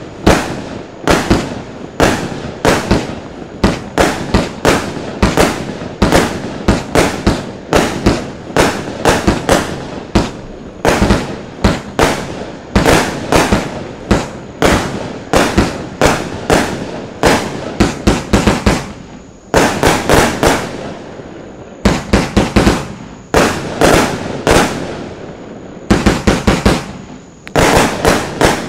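Lesli Dark Dragon 200-shot, 25 mm compound fireworks battery firing: a continuous run of sharp bangs, about two a second, each trailing off in a crackle, with denser clusters of shots in the last third.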